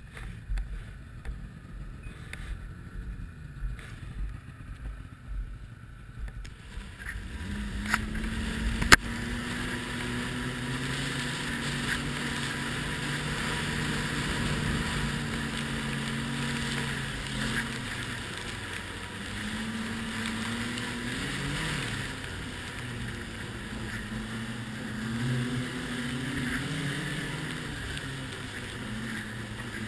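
Ski-Doo Renegade 1200 snowmobile's four-stroke engine heard from the seat. For the first several seconds there is only a low rumble with scattered knocks. About seven seconds in the engine note comes up and it runs under throttle, its pitch rising and falling, with one sharp click a couple of seconds later.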